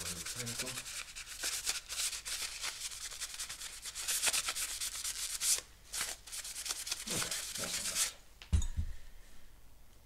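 A paper towel damp with isopropyl alcohol rubbed briskly back and forth over the flat aluminium base of a CPU heatsink, wiping off old thermal paste. The scrubbing comes in quick strokes with a brief pause about halfway. Near the end there is one dull knock as the heatsink is put down on the table.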